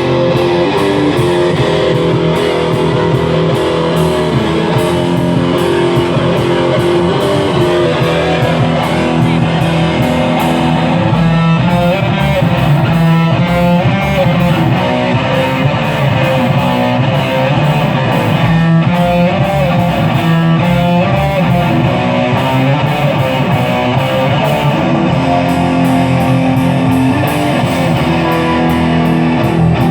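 Rock music led by electric guitar, with a steady beat.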